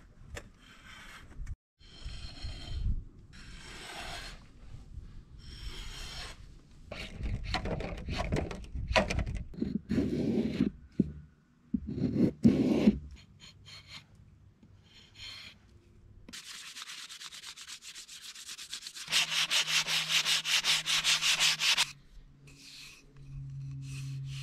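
Drawknife shaving bark and wood off green poplar sticks in a series of irregular scraping pulls. About two-thirds of the way through comes fast, even back-and-forth rubbing of sanding on the wood.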